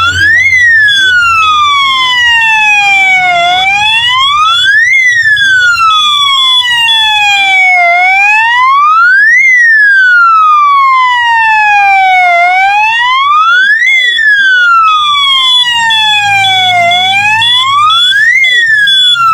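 Electronic fire alarm sounder in alarm after a smoke detector is smoke-tested: a loud siren that sweeps quickly up, then slides slowly down, repeating about every four and a half seconds, with a high, fast-pulsing beep running alongside.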